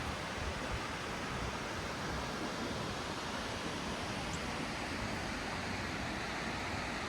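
Steady rush of water pouring over a dam and down rocky falls, an even hiss with no breaks.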